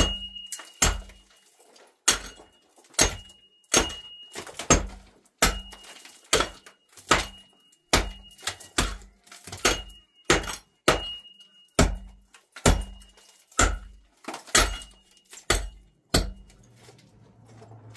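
Hammer blows knocking a hole through a concrete-block wall to let light into the room, about one blow a second, each with a short metallic ring. The hammering stops about sixteen seconds in.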